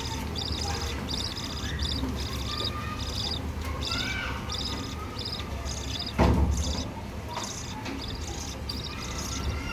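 Budgerigar chicks begging with raspy, high-pitched cheeps in short bursts about twice a second. There is a steady low hum underneath, and a loud knock about six seconds in.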